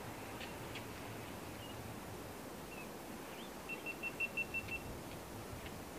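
A quick run of about seven short, high beeps at one steady pitch, a little before the middle, over a steady background hiss, with a few faint single chirps before it.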